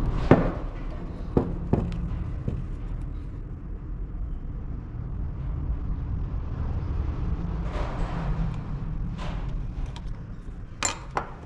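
Hand work on car parts: a few sharp clicks and knocks of tools and metal parts being handled, a handful near the start and two close together near the end, over a steady low rumble.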